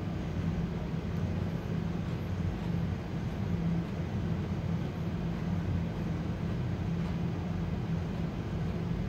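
Steady low machine hum with a constant low drone.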